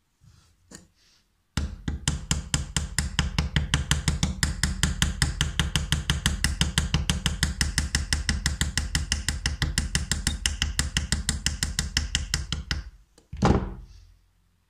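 A rapid, very even run of mechanical knocks that starts suddenly, lasts about eleven seconds and stops abruptly, followed by one short loud noise about a second later.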